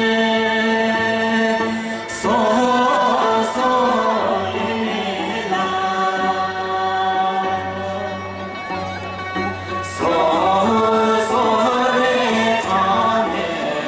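Slow Bhutanese folk song sung by a group of voices, with long held notes; a new phrase begins about two seconds in and again about ten seconds in.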